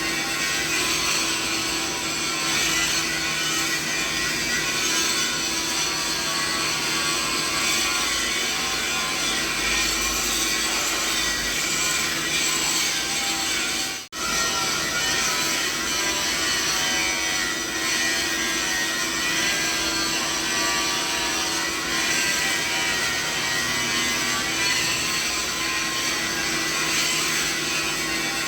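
Steady machinery noise: a dense whir strongest in the upper-middle range, laced with faint steady tones over a low hum. It drops out for an instant about halfway through, then carries on unchanged.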